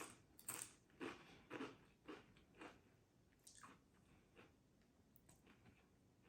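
Close-up crunching of a mouthful of Pringles potato crisps being chewed, a crisp crackle about every half second that turns fainter and sparser after about three seconds.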